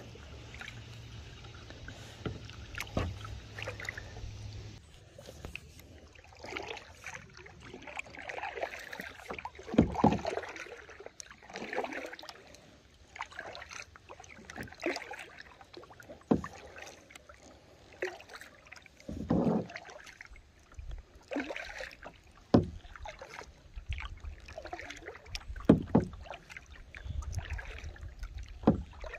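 Kayak paddling on calm lake water: the paddle blades dip and pull through the water in irregular splashes and drips a second or two apart.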